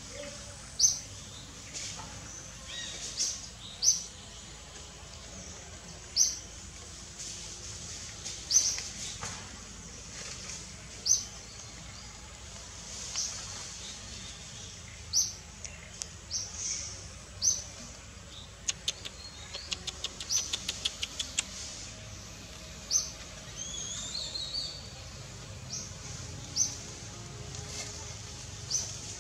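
Forest birds calling: short, sharp high chirps repeat every second or two. About two-thirds of the way through comes a quick run of ticking notes, followed by a few gliding whistles.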